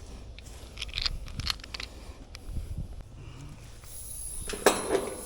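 Clicks and knocks of refrigerant gauge-hose fittings being handled. About four seconds in, a steady high hiss starts as nitrogen flows through the hoses to pressurise the system for a leak test.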